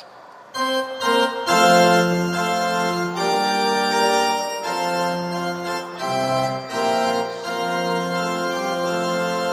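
Mixed choir singing a traditional Romanian Christian chant in slow, held chords that sound organ-like, starting about half a second in.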